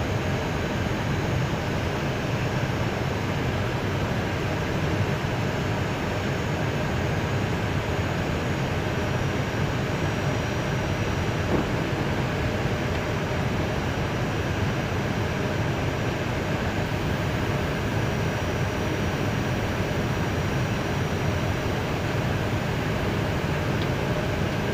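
Steady rush of Airbus A320 cockpit noise while taxiing slowly: engines at idle thrust and the air conditioning, with a faint high whine. A faint click about halfway through.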